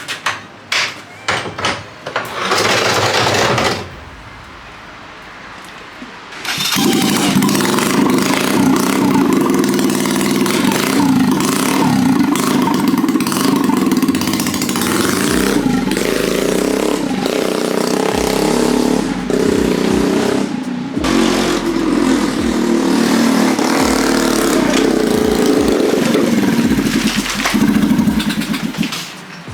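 Battery-powered four-wheel-drive mini kart driving: its electric drive motors and drivetrain run under load in short bursts at first, then continuously from about six seconds in.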